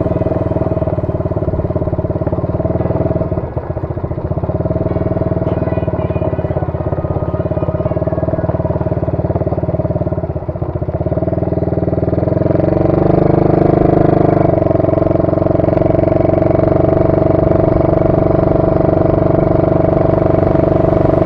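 125cc ATV engine running under way, with the throttle eased twice briefly. About halfway through the engine note rises and grows louder as it is opened up, then holds steady.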